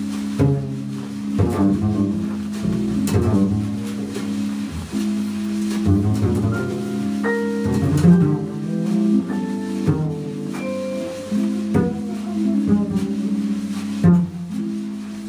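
Jazz ensemble playing live, with a double bass plucked under held chords and a stepping melody line above.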